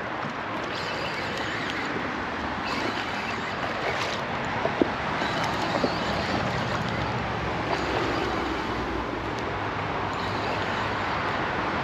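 Steady highway traffic noise, with a few faint clicks about halfway through.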